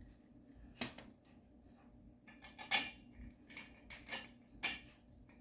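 Irregular metallic clinks and taps of garment-rack parts being handled: the caster wheels and their screw caps being fitted to the metal bottom frame. There are about half a dozen sharp knocks, the loudest near the middle and near the end.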